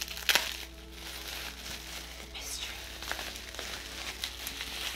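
Small package wrapping being torn open and crinkled by hand, with a sharp crackle about a third of a second in and scattered rustles after, over soft background music.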